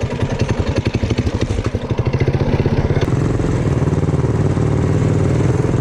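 Predator small engine on a Motovox mini bike running, first with distinct chugging beats at low revs, then picking up speed about two seconds in and running steadily at higher revs.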